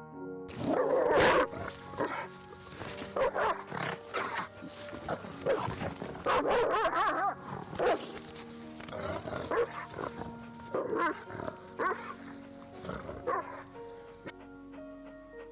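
A dog barking in short, repeated bursts, a dozen or so, over background music with steady held notes.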